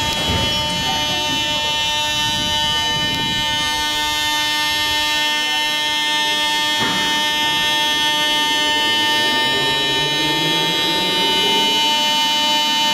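Moscow metro train standing at the platform with its doors open, its onboard electrical equipment giving a steady hum and whine of several fixed tones. There is a single knock about seven seconds in, and a low whine rises slowly near the end.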